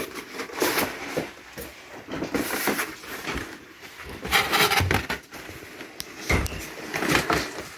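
A cardboard shoebox being opened and its paper wrapping rustled and pulled out, in several short bursts of rustling and handling.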